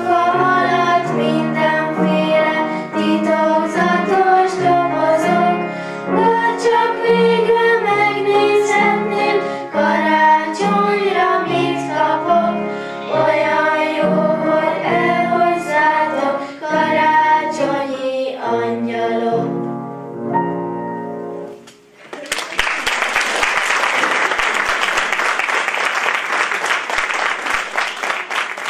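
A small group of children singing a Christmas song together over an instrumental accompaniment. The song ends about twenty seconds in, and after a brief lull the audience breaks into applause.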